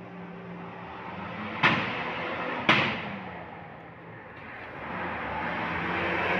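A large bus engine running with a low steady hum. Two sudden loud bursts about a second apart each fade out quickly. Then a rising rush of noise builds toward the end as a vehicle moves off or draws near.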